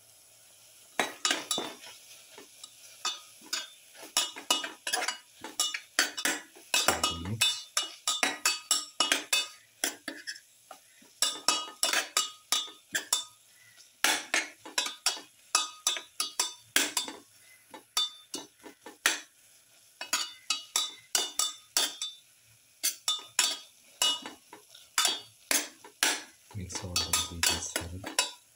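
Perforated metal spatula scraping and clinking against a steel pan as an onion, tomato and spice masala is stirred, in quick irregular strokes. A dull low rumble comes about seven seconds in and again near the end.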